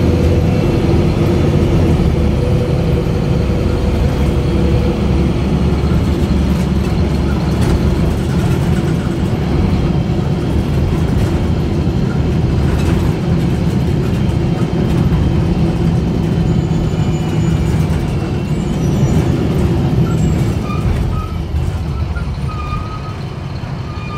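Interior of a 2002 Gillig Advantage LF30 transit bus under way, with its Cummins ISC diesel engine and Voith automatic transmission running steadily under the road and body noise. The engine sound drops off somewhat near the end.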